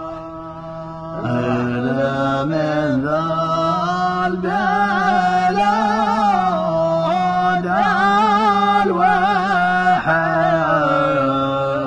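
Yemeni sung chant: a voice sings a slow, ornamented melody over a steady held drone note, the voice coming in about a second in.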